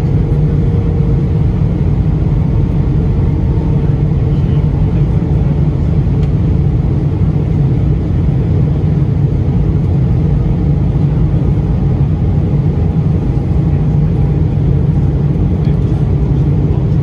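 Steady low rumble of engine and air noise inside the cabin of an Airbus A321 airliner, with faint steady tones above it.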